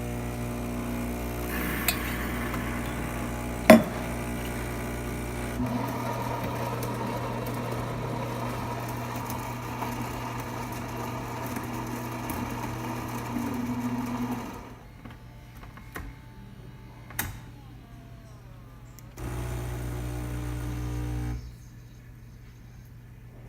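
Gaggia Platinum Vision super-automatic espresso machine pulling a shot: a steady mechanical hum and buzz that changes character about six seconds in and stops about fourteen seconds in. A few sharp clicks follow, then the hum runs again for about two seconds near the end.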